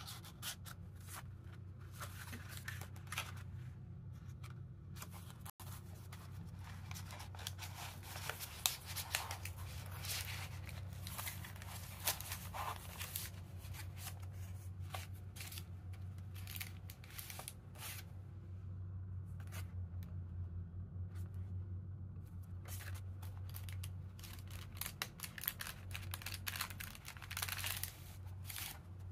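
Paper and card rustling and sliding as a handmade paper journal's pages, pockets and tucked-in cards are handled and flipped, in many short, irregular rustles over a low steady hum.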